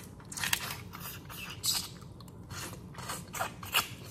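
Crawfish shells cracking and snapping close to the microphone as they are broken open and peeled by hand, with some chewing: about six short, sharp cracks at uneven intervals.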